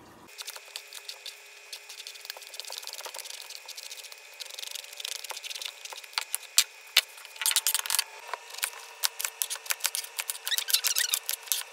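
Bottle gourd being peeled by hand, a blade scraping strips of skin off in short scratchy strokes with clicks, then a kitchen knife cutting the peeled gourd into bite-size pieces, with quick taps of the blade on the counter near the end.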